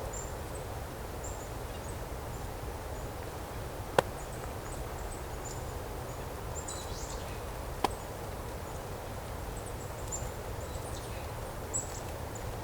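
Very high, thin call notes of golden-crowned kinglets foraging, short and repeated throughout. Two sharp clicks stand out, about four and eight seconds in.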